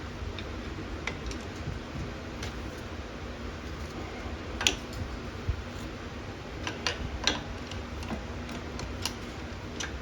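Scattered sharp metallic clicks and taps of hand work on a car's brake caliper as the brake pads are pried out, the loudest about halfway through, over a steady low hum.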